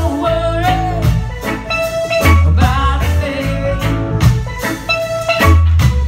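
Live band playing a reggae song through a PA: sung vocals over guitar, bass notes and drums.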